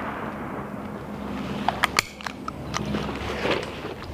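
The echo of a shotgun blast dies away through the woods at the start. About halfway through come a handful of sharp clicks and knocks as the shotgun is lowered and handled.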